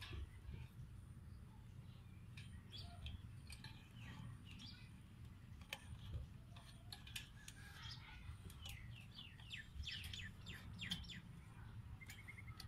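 Faint bird chirps and calls, with a short run of repeated notes near the end, and a few light clicks of a wire fan guard being handled.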